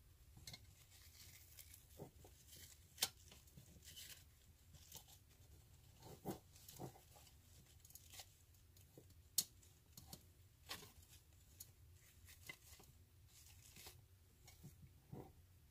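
Faint rustling and crinkling of artificial flower stems and plastic foliage as they are handled and pushed into an arrangement, with scattered light clicks and two sharper clicks, about three seconds in and about nine seconds in.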